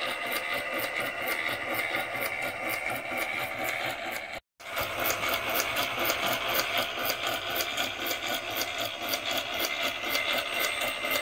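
Mattel Major Matt Mason Firebolt Space Cannon's battery-powered motor and sound action running: a steady mechanical whirring buzz with a rapid rhythmic clatter, about four to five beats a second. It breaks off for a moment about four and a half seconds in, then carries on.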